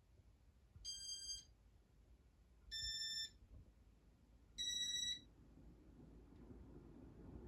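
Three electronic beeps from a Casablanca Intelli-Touch ceiling fan's control electronics, each about half a second long and spaced about two seconds apart, each a step higher in pitch than the one before. After the third beep a low rushing sound slowly builds.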